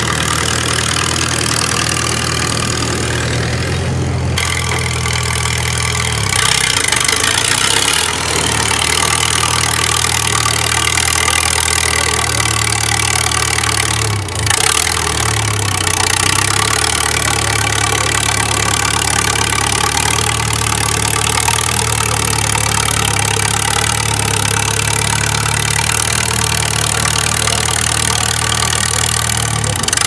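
Clark CA-1 airborne bulldozer's four-cylinder water-cooled Waukesha FC engine running steadily while the little tracked dozer is driven, with a brief dip in level about halfway through.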